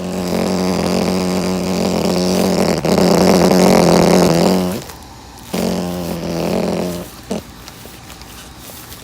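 Loose sheet-metal duct collar on a running gas furnace vibrating with a loud, steady buzz. It is held only by tape, with no screws. The buzz stops suddenly about five seconds in, comes back briefly, then stops again, followed by a single click.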